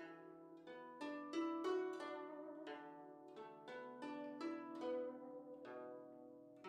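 Slow background music of plucked strings: single notes struck one after another, each ringing out and fading, over held lower notes.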